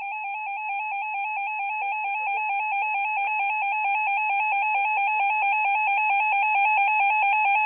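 Electronic emergency alert attention tone warbling rapidly and evenly between two close pitches: the alert signal that precedes a spoken Emergency Alert System weather bulletin.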